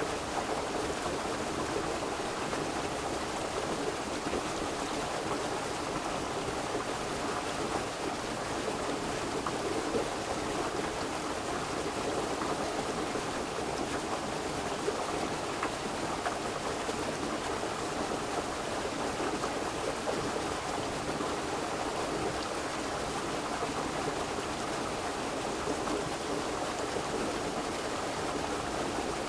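River water flowing steadily over rocks, a continuous even rush and burble.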